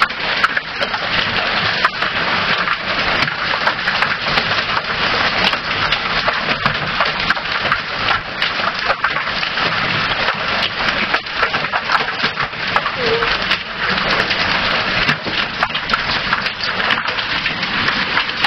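Hail and heavy rain pelting down in a thunderstorm: a dense, steady clatter of countless small hard impacts over a rushing hiss.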